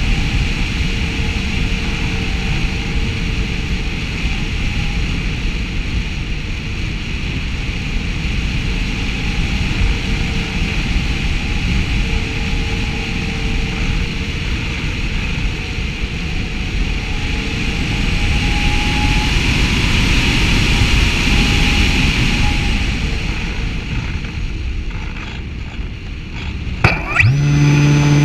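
Steady rush of wind over a model airplane's on-board camera as it glides with the motor off. About a second before the end the motor starts, its pitch rising quickly and then settling into a steady propeller hum.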